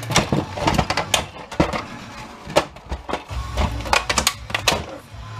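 Snap-fit plastic housing of an all-in-one inkjet printer being pried and broken apart by hand: a rapid, irregular series of sharp plastic cracks and clicks as the clips give way.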